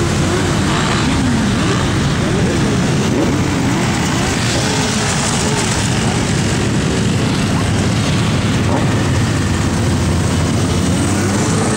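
A stream of motorcycles riding past, a continuous engine din with several engines revving up and down.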